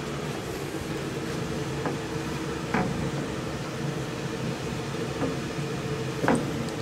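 Furnace blower fan running with a steady hum. A couple of light clicks come about three seconds in and again near the end.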